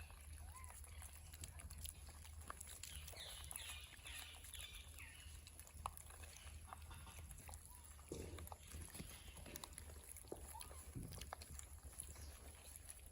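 Faint animal calls: a run of short high calls about three seconds in, with scattered clicks over a steady low hum.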